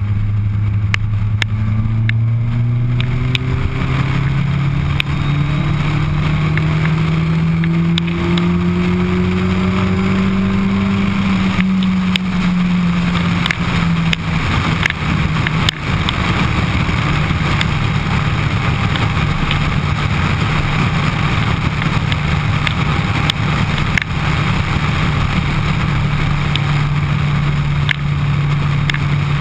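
Suzuki Hayabusa's inline-four engine heard from the rider's seat. It pulls with a steadily rising pitch for about eleven seconds, eases back a little and then holds a steady cruise, over a constant rush of wind.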